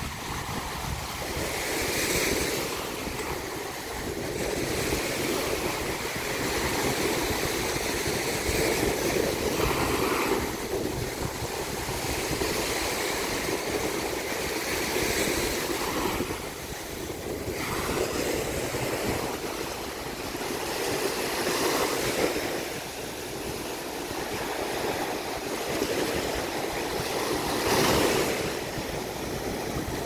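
Ocean surf: small waves breaking and washing up the sand in a steady rush that swells every five or six seconds as each wave comes in.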